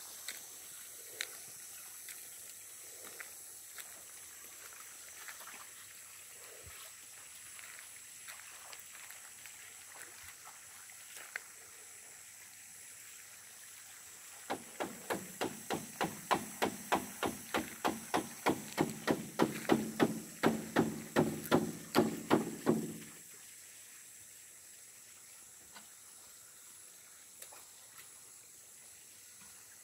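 Rapid, even knocking, about three strokes a second, starting about halfway through, growing louder over some eight seconds, then stopping suddenly. A few faint scattered clicks come before it.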